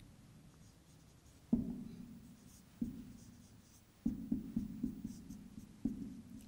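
Marker pen writing on a whiteboard: a series of short strokes, several of them in quick succession about four to five seconds in.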